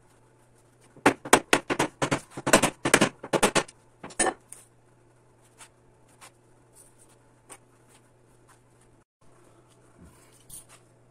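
A small hammer tapping a wooden bench rail down onto its round spindles: about a dozen quick sharp taps over two and a half seconds starting about a second in, one more a moment later, then only faint knocks of the spindles being handled.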